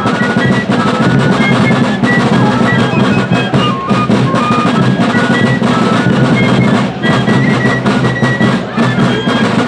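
Fife and drum corps playing: fifes carry a melody of short held high notes over fast snare drum rolls and strokes, with a bass drum beneath.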